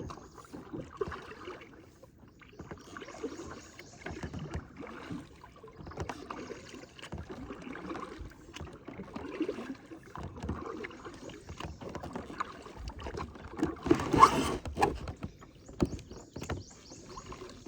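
Kayak paddle strokes dipping and splashing in river water, repeating every second or two, with light knocks of paddle on hull and one louder splash about fourteen seconds in.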